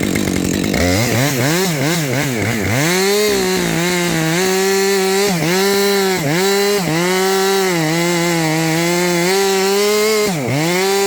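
Husqvarna 550 XP two-stroke chainsaw at full throttle cutting through a limb, its engine pitch dipping and recovering again and again as the chain loads up in the wood, with one deeper dip near the end.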